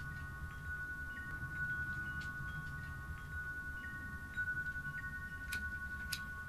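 Several chime-like tones sound together and hold steady, while short higher notes come and go above them, over a low rumble. Two sharp clicks come near the end.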